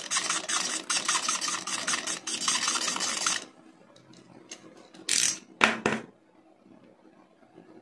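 Metal tip of a screwdriver scratching back and forth across a smartphone's glass screen, a rapid gritty rasping that stops about three and a half seconds in. Two short clattering sounds follow a little later, from the screwdriver being set down on the table.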